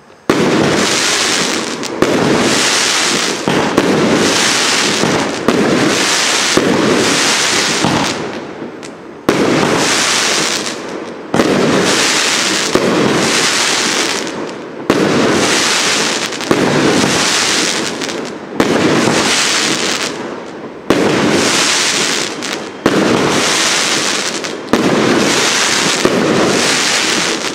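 30 mm, 25-shot fireworks cake (battery of tube launchers) firing shot after shot, about one to two seconds apart. Each shot is a sudden loud bang that trails off over about a second.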